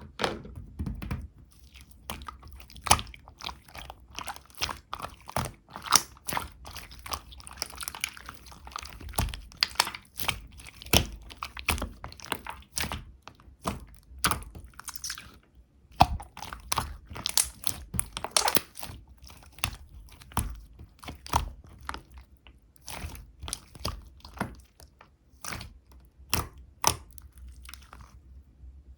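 Slime being squished and kneaded by hand, giving irregular crackling clicks several times a second.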